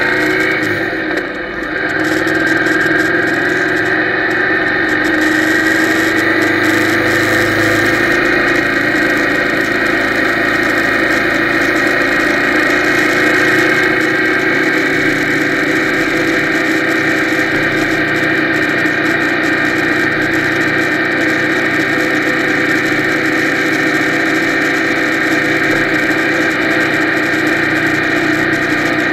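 Yamaha TDM's parallel-twin engine running steadily under way at road speed, with wind and road noise, heard through an action camera's waterproof housing. The engine pitch creeps slowly upward, and there is a brief dip in level about a second and a half in.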